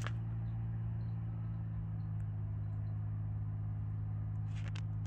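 Steady low engine drone of farm machinery, a tractor or rice transplanter working the paddies at rice-planting time, with a few light clicks near the end.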